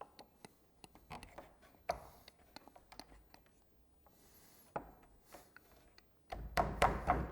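Scattered light clicks, taps and rubbing of wooden pieces being handled on a workbench, with a louder run of knocks near the end.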